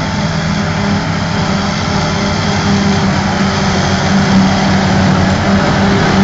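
Claas Jaguar 870 self-propelled forage harvester working under load, picking up a grass swath and chopping it into silage, with a tractor running alongside. A steady, loud machine sound with a low hum that grows a little louder as the machines draw near.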